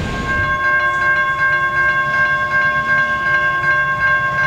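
Railroad grade-crossing warning bell ringing at a steady beat of about three strikes a second, each ring running into the next, signalling an approaching train.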